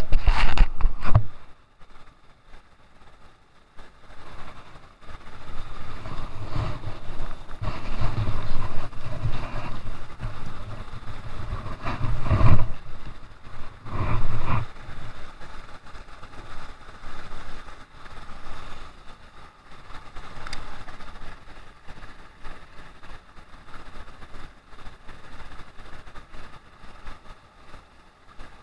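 Running water of a shallow rocky stream, mixed with wind buffeting and handling rustle on a body-worn camera. There is louder rustling at the start and two sharper bumps near the middle, then a quieter, steady rush of water.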